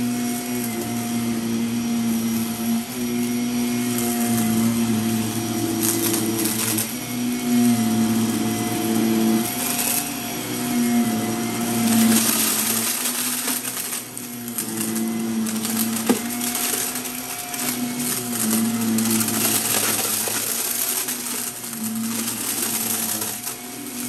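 Shark upright vacuum cleaner running on a shag rug, its motor hum rising and falling as it is pushed back and forth, with scattered crackling and rattling as confetti is sucked up.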